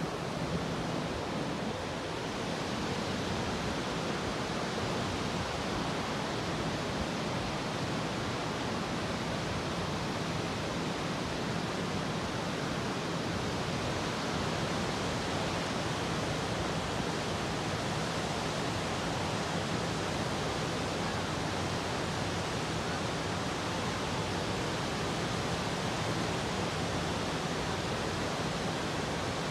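Steady, unbroken rushing of ocean surf breaking on a sandy beach, heard from the top of a cliff.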